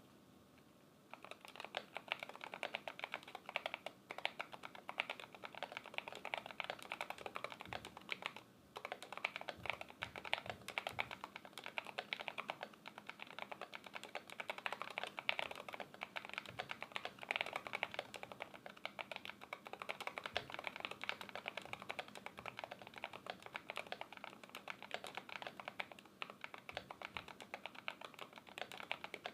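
Fast continuous typing on an Idobao ID80 v1 mechanical keyboard with stock Akko Rosewood switches on an aluminium plate: a dense run of muted keystroke clacks. It starts about a second in, with a brief pause a little under a third of the way through. The switches are fully stock, their springs not lubed.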